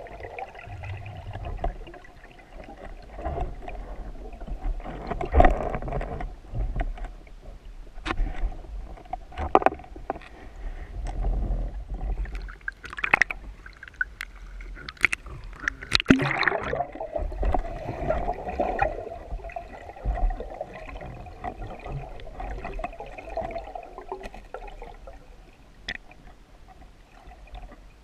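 Muffled underwater sound through a camera housing on a speargun: water moving past, with many sharp clicks and knocks. About halfway through there is a louder rush and splash as the freediver breaks the surface, sweeping down in pitch before the muffled underwater sound returns.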